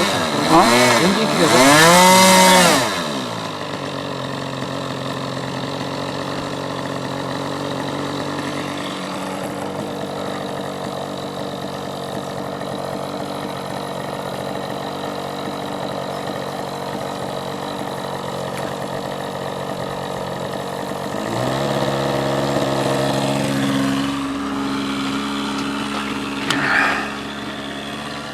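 Small radio-control model airplane engine running: it is revved up and down a few times, then settles to a steady lower speed, and is throttled up to a higher, louder speed about three quarters of the way through, with one brief burst near the end.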